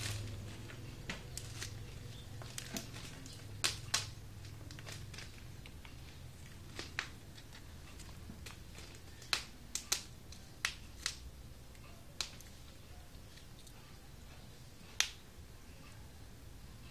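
A kitten batting and tugging at a sneaker's shoelaces: scattered light clicks and taps at irregular intervals, over a steady low hum.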